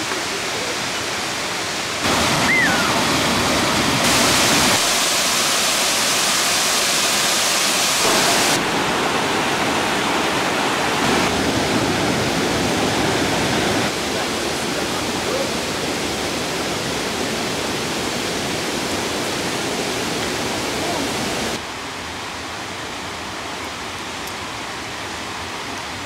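Steady rush of falling water from a waterfall, its level stepping abruptly louder or softer several times, loudest between about two and fourteen seconds in.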